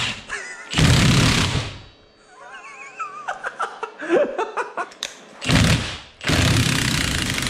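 Milwaukee cordless impact hammering in three bursts on the Allen bolts of a CV axle's joint: the bolts are stuck tight and slow to break loose.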